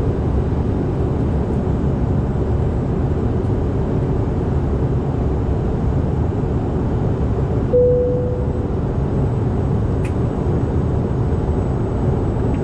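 Steady in-flight cabin noise of a CRJ-900 regional jet: engine and airflow noise heard from inside the cabin. A single cabin chime dings once about eight seconds in and fades over about a second.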